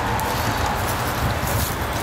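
Traxxas TRX-4 Sport RC crawler climbing a pile of dry sticks. Its tires and chassis knock and crunch on the wood and leaves over the whir of its electric motor and drivetrain.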